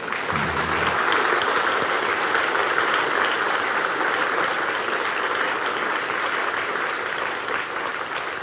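Audience applause that swells within the first second, holds steady, and eases slightly near the end.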